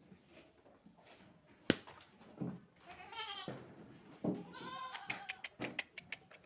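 Goats bleating: two wavering calls, about three and four and a half seconds in. A sharp knock comes just under two seconds in, and a run of clicks near the end.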